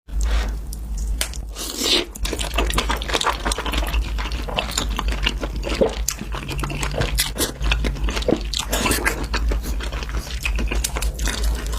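A person biting and chewing crisp food with loud, dense crunching.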